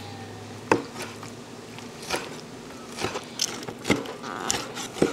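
Cleaver chopping soft-shell turtle meat on an end-grain wooden cutting board, mincing it. Separate sharp knocks about a second apart, coming closer together near the end.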